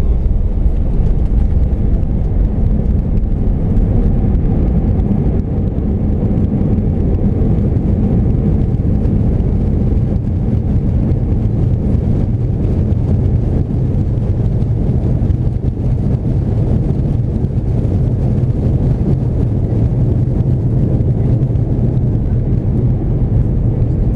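Steady low rumble inside the cabin of an Airbus A320-232 rolling along the runway after landing, from the tyres on the concrete and the wing-mounted IAE V2500 engines. A low steady hum joins in about halfway through.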